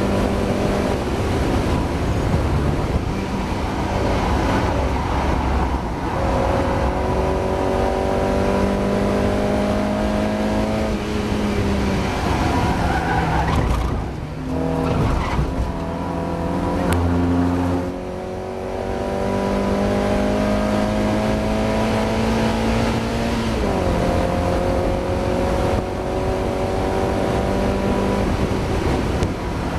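Mazda MX-5 race car's four-cylinder engine heard from on board at racing pace. The pitch climbs steadily through each gear, drops sharply at upshifts about 6, 12 and 23 seconds in, and falls away around the middle as the car slows.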